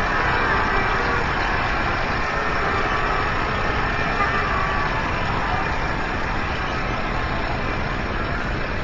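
Large rally crowd cheering and shouting in a sustained roar, slowly dying down.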